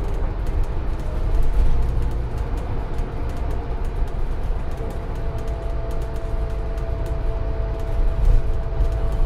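Scania N250UD double-decker bus under way, heard from inside the lower deck: the five-cylinder diesel's low drone and road rumble with a steady whine over it, and small rattles from the interior fittings.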